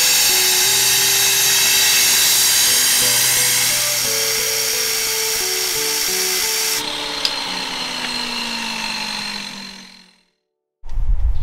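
Makita angle grinder cutting black Marquina marble, a steady high whine and hiss, with background music over it. The grinder fades out about ten seconds in, and after a short gap a loud low rubbing starts near the end.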